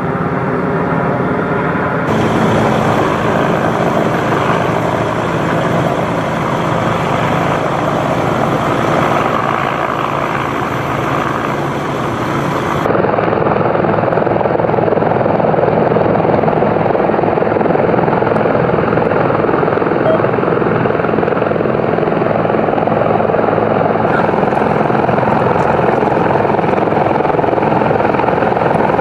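Helicopter hovering overhead, its rotor beat and engine noise steady throughout and a little louder from about halfway through.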